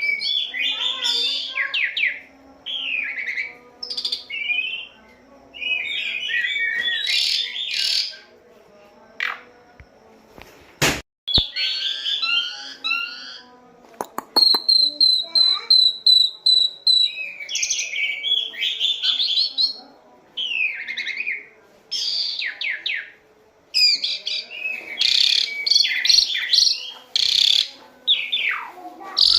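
Jalak suren (pied starling) singing a loud, varied song of chattering and whistled phrases broken by short pauses. Partway through it gives a few sharp clicks, then a quick run of evenly repeated high notes.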